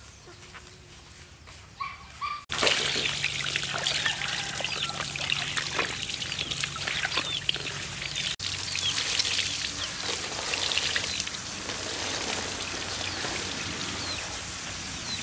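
Water poured from a plastic scoop over a raw pork liver in a bamboo basket, splashing and trickling as the liver is rinsed by hand; it starts suddenly about two and a half seconds in, after a quieter stretch. Birds chirp throughout.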